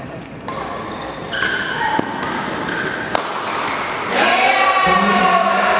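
Badminton rackets hitting a shuttlecock in a rally, two sharp hits about a second apart in a large echoing hall. From about four seconds in, voices shout loudly over it.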